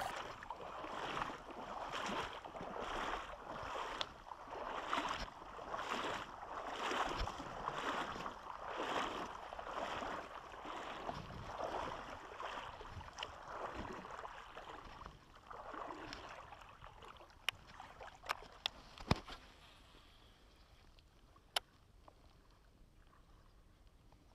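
Shallow river water sloshing around an angler's wading legs, about one surge a second, dying away after about fifteen seconds. A few sharp clicks follow near the end.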